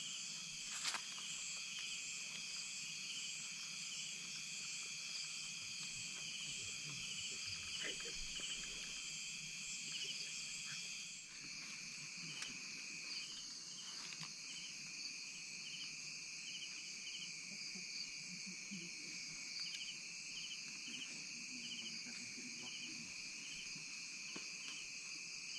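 Chorus of night insects, several trilling steadily at different high pitches, joined by a repeated pulsing chirp in the second half.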